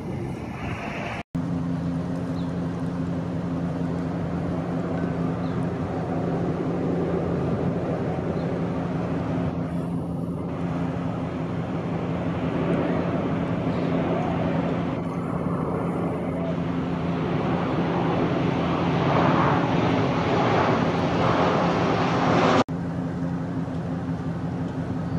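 Steady low engine hum with a wash of traffic-like noise that swells toward the end; the sound drops out briefly about a second in.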